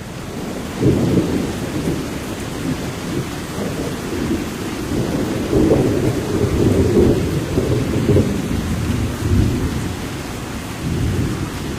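Thunderstorm: low rolling rumbles of thunder that swell and fade over a steady hiss of rain.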